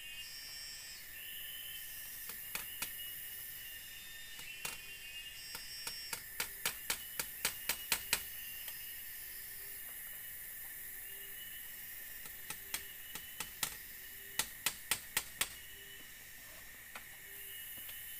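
Sharp wooden knocks from split-bamboo wall slats being worked by hand, a few single ones and then two quick runs of about four a second. Behind them is a steady high buzz of forest insects.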